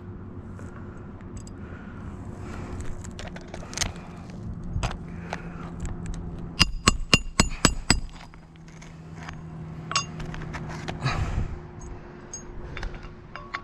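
A hammer driving a roofing nail back into asphalt shingles: a quick run of about seven ringing metal strikes midway, with scattered clinks and scrapes of nails and metal around it.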